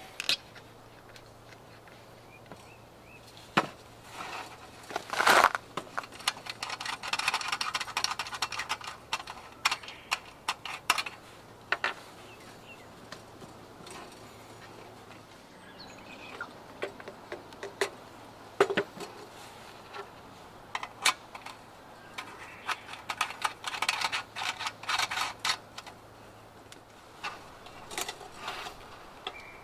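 Rapid tapping and knocking in two runs of several seconds each, with scattered single knocks between and one sharp knock about five seconds in.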